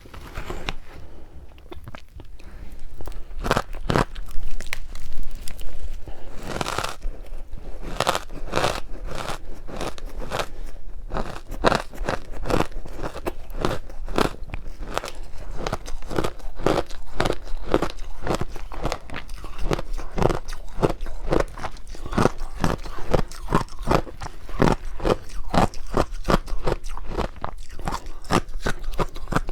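Someone biting into and chewing powdery matcha-dusted ice, with crisp crunches. A few separate bites come first; from about seven seconds in, steady chewing crunches follow at about two a second.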